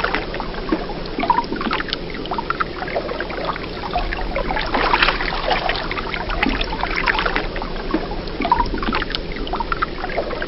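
Water splashing and sloshing irregularly, like people wading across a river.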